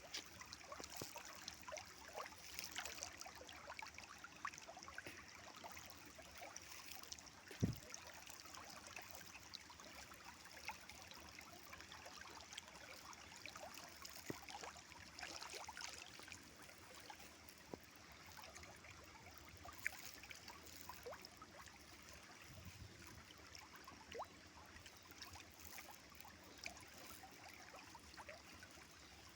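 River water flowing and trickling, faint and steady, with many small splashes and one sharp knock about eight seconds in.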